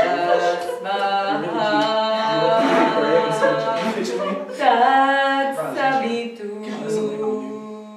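Singing: a voice holding long notes that slide up and down in pitch.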